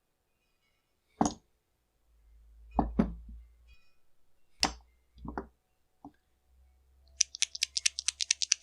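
A scrench used as a hammer tapping on a small-engine carburetor to loosen a stuck metering diaphragm cover: six sharp, irregular knocks. A quick run of light clicks starts near the end.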